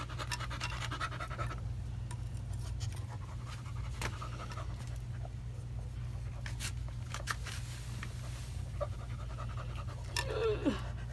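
A Labrador retriever panting, with scattered light clicks and taps, over a steady low hum. A brief falling, voice-like sound comes near the end.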